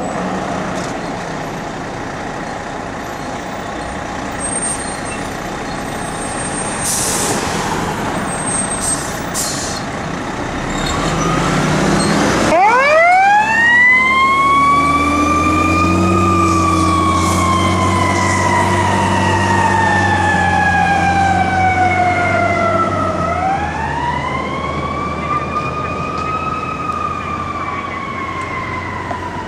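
A fire engine's diesel running as it pulls out, with a short hiss about seven seconds in. About twelve seconds in, its siren winds sharply up, then wails slowly down and up again as the truck drives past and away.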